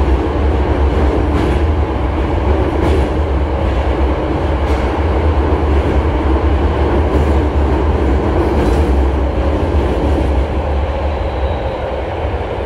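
Running sound inside a Hankyu 5300 series resistance-control commuter car travelling through a subway tunnel: a steady heavy rumble of wheels and running gear with a few faint clicks, getting slightly quieter near the end.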